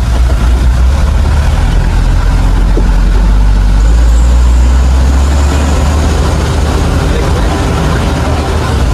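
Truck engine running under load as the truck drives a rough dirt track, heard from inside the cab. It runs loud and steady, and its note changes about four seconds in.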